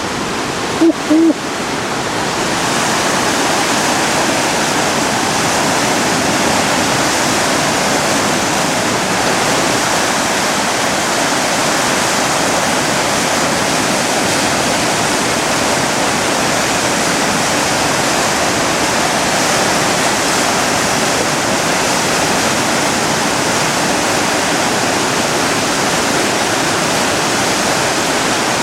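Fast, high floodwater of the Driva river in a major flood rushing past, a loud, steady rush that swells a little about two seconds in. Two short pitched blips sound about a second in.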